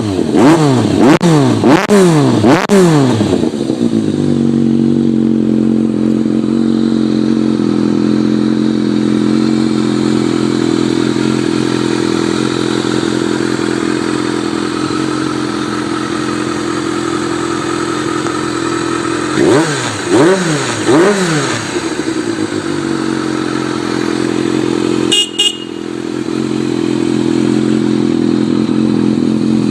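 Old Kawasaki four-cylinder motorcycle engine running at a steady idle. It is revved up and back down in quick throttle blips, about four at the start and three more about twenty seconds in.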